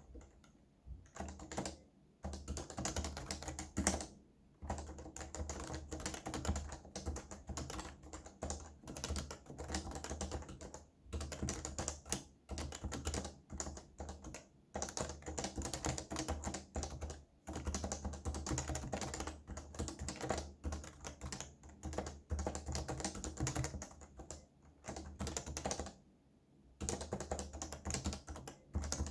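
Fast typing on a computer keyboard: dense runs of key clicks with a low thud under them, broken every few seconds by short pauses.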